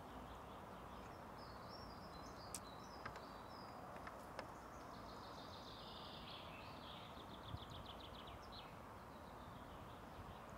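Faint songbird singing: high chirping phrases that end in a rapid trill about eight seconds in, over a steady low hiss, with a few faint sharp clicks.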